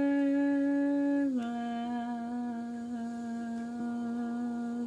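A woman humming two long, steady notes, sliding down to the lower one about a second in and holding it.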